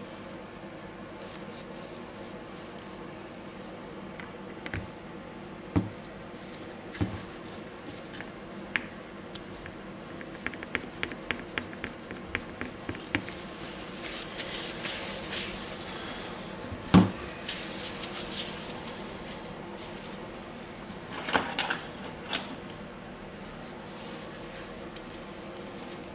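Small metal gears and parts of a DeWalt DCH273 rotary hammer's gearbox being handled and fitted by hand: scattered clicks and taps, a quick run of about a dozen light clicks, and a sharper knock a little past the middle. A paper towel rustles for a few seconds around the middle.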